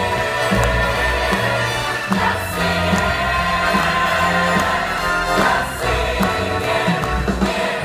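A large stage ensemble sings in chorus over a live orchestra during a musical-theatre finale number.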